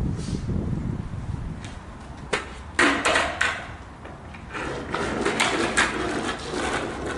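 Skateboard on rough asphalt: a few sharp clacks of the board around the middle, then the wheels rolling with a gritty, clicking rumble from about four and a half seconds in.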